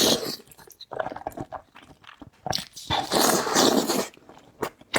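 Close-miked eating sounds: wet chewing and biting with short clicks, and a longer noisy stretch a little past halfway.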